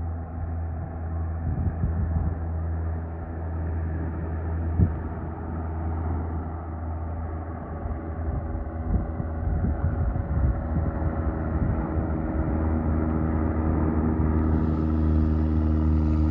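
Cessna 185 Skywagon's piston engine and propeller droning steadily, growing louder as the plane approaches, with wind buffeting the microphone.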